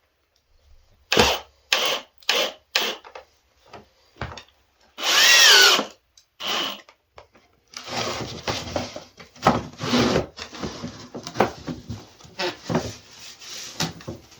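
Power drill driving screws into wood: a few short knocks, a brief whirring burst about five seconds in, then a longer stretch of drilling in the second half.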